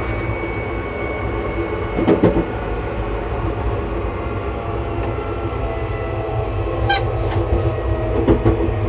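Class 334 electric multiple unit running, heard at the gangway between carriages: a steady low rumble from the running gear with the traction motors' whine as faint steady tones above it. Two clunks sound, about two seconds in and near the end, with a quick rattle of clicks shortly before the second.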